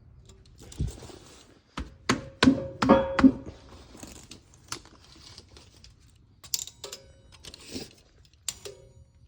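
Steel axle shaft and hub being knocked over to center the shaft: a cluster of sharp metal knocks with a short ringing tone about two to three and a half seconds in, with lighter clicks and clanks around them.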